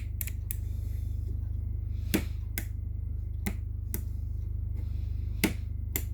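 Rebuilt Mercedes W123 power window switch rocker being pressed back and forth, snapping crisply into its detents about nine times at uneven intervals. The firm snap shows the cleaned, greased springs and seesaw contacts are seated properly; it sounds solid. A steady low hum runs underneath.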